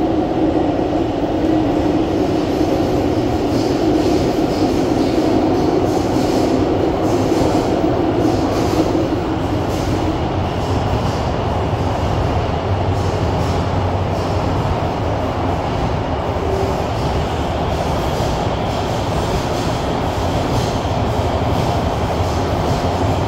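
Running noise of an SMRT CT251 metro train heard from inside the passenger car while it is under way: a steady rumble of wheels on rail and the drive. A louder mid-pitched drone fills the first ten seconds or so, then eases off.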